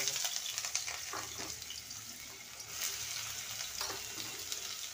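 Vegetables frying in hot mustard oil in a kadai: a steady sizzle, with a few short scrapes or taps of the spatula in the pan.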